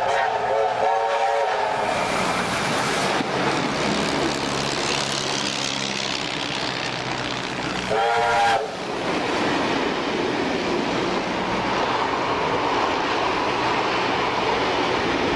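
Steam locomotives running past on parallel tracks, with a steady rush of running noise and rail clatter. A multi-tone chime whistle sounds near the start, and a short, loudest blast comes about eight seconds in.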